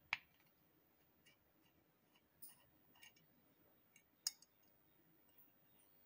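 Small screwdriver clicking against the screws and bearing retainer plate of a ceiling fan's metal end cover as the screws are undone: a few sharp metal clicks, the loudest right at the start and about four seconds in.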